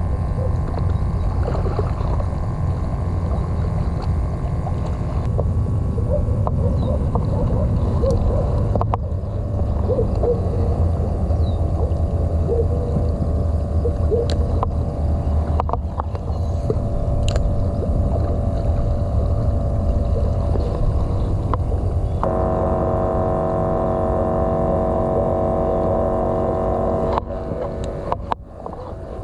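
Boat engine running with a steady low drone. About two-thirds of the way through, a stronger set of droning tones comes in for roughly five seconds, then drops away.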